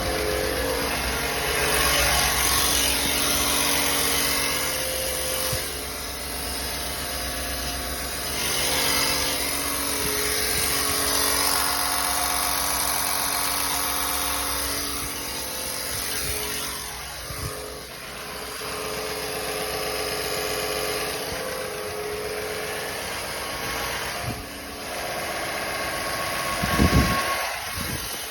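Chevrolet Silverado's engine running with a ticking noise that appeared after its DOD (cylinder deactivation) delete. A few loud knocks come near the end.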